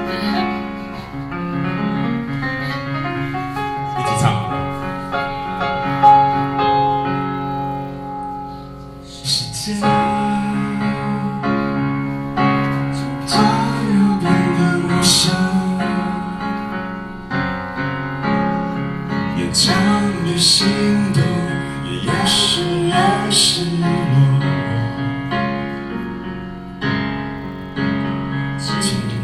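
Pop song played live, led by piano or electric keyboard. A woman starts singing about ten seconds in.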